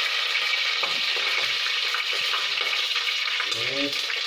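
Mustard seeds spluttering in hot oil in a wok: a steady sizzle with a few sharp pops, the tempering stage that starts the curry.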